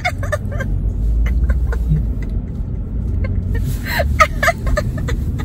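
Steady low road rumble inside a moving car, with a few short vocal noises about four seconds in.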